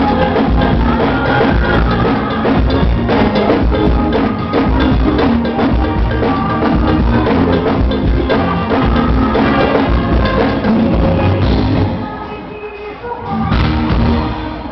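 Live forró band music with a driving drum kit and bass, as heard from the crowd. The full band thins out and drops in level about twelve seconds in, then comes back strongly.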